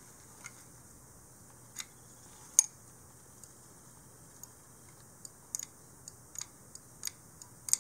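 A dozen or so light clicks and taps of an aluminium-and-resin blaster replica's parts being handled and fitted by gloved hands, the sharpest about two and a half seconds in, over a faint steady hiss.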